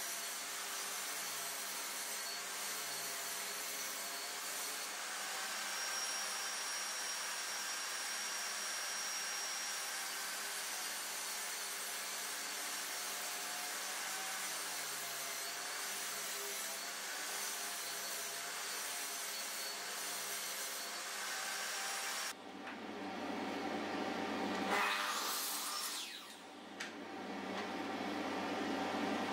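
Table saw running as a 15 mm OSB panel is pushed through it, a steady even noise. About 22 seconds in this gives way abruptly to a Metabo mitre saw cutting OSB, louder and uneven, swelling twice.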